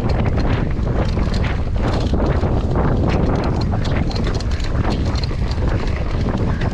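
Mountain bike descending a dirt trail at race speed: heavy wind noise on the microphone, with a dense run of quick clicks, knocks and rattles from the bike over bumps.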